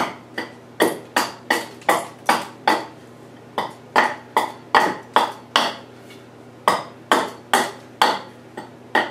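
A hatchet chopping down the length of a wooden lathe blank held upright on a chopping block, knocking off the corners to bring it toward round. The sharp chops come about two and a half a second, in runs with two short pauses.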